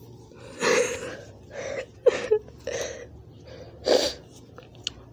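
A person crying: a handful of short sniffs and sobbing breaths, about a second apart.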